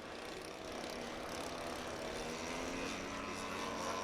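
Several radio-controlled model aircraft with propeller engines flying overhead. Their pitches overlap, rising and falling as they pass and turn.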